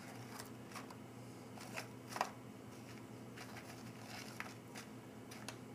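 Faint, scattered light taps and clicks as shortbread cookies are set down one at a time in a plastic compartment tray, over a low steady hum.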